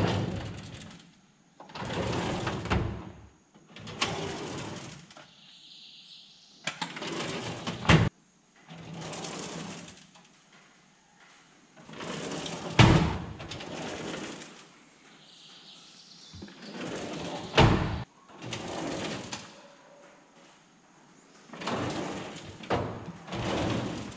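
Steel tool-box drawers sliding open and shut on their runners, one after another, each stroke a rolling rumble that often ends in a sharp metal clunk as the drawer stops.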